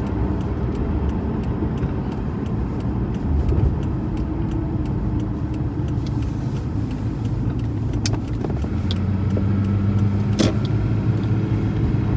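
Car being driven, heard from inside the cabin: steady engine and road rumble, with the engine hum growing stronger in the last few seconds. Two sharp clicks, about eight and ten seconds in.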